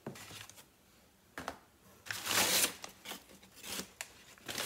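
Paper packaging rustling and crinkling as items are handled and lifted out of a cardboard box: a few short rustles, with one longer, louder rustle about two seconds in.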